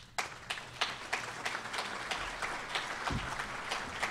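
Audience applauding: dense, steady clapping that starts a moment in.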